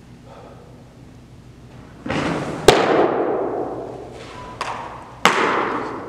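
Baseball smacking into a leather catcher's mitt twice, about two and a half seconds apart: sharp pops, each followed by a long echo off the hall.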